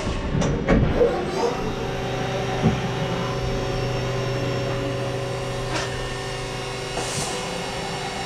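Haas VF1 CNC vertical machining centre running with a steady mechanical hum, several sharp clunks in the first second and a couple of single clicks later.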